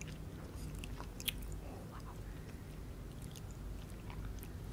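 Close-miked chewing of a mouthful of pani puri, with small crunches and mouth clicks from the fried puri shell. One sharper crunch comes about a second in.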